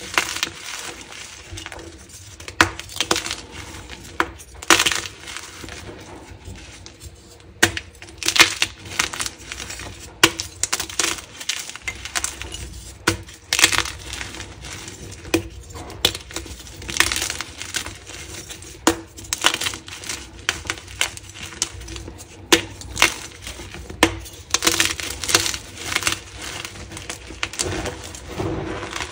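Dyed gym-chalk blocks crushed and crumbled by hand: many irregular, crisp crunches and crackles as the blocks break into crumbs and powder.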